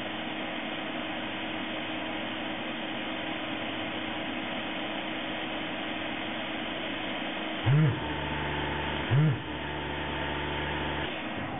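Hot air rework gun blowing with a steady hiss onto a mainboard, while the desoldering iron's vacuum pump switches on twice, about 8 and 9 seconds in. Each time it starts with a short loud whir and then hums for a second or two as it sucks molten solder out of the capacitor holes.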